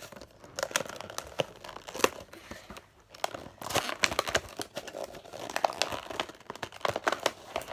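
Cardboard toy-figure box being torn and pulled open by hand: a dense run of rips and clicks of stiff packaging, thinning out briefly about three seconds in.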